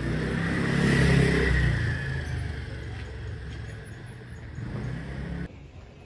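A road vehicle's engine passing close by, loudest about a second in and then fading away, with tyre and road hiss. The sound cuts off suddenly near the end.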